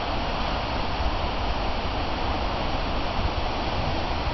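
Heavy storm surf, waves breaking and washing in over one another in a steady wash of noise, with wind blowing on the microphone.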